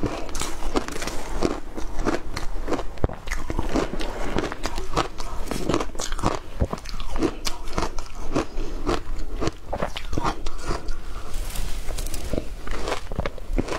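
A person biting and chewing mouthfuls of frozen shaved ice dusted with matcha and milk powder: a steady, rapid run of crisp crunches, close to a clip-on microphone.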